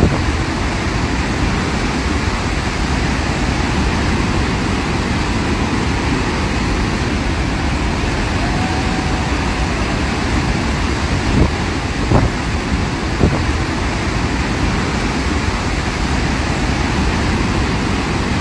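Victoria Falls, a huge waterfall, giving off a loud, steady roar of falling water. A few short knocks come in just past the middle.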